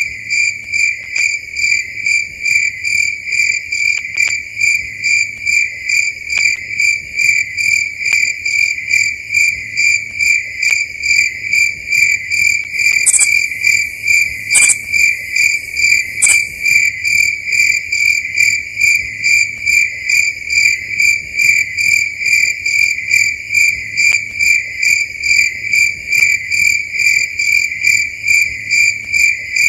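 Crickets chirping at night, a loud, steady train of evenly spaced high-pitched chirps, with a few brief sharp clicks about halfway through.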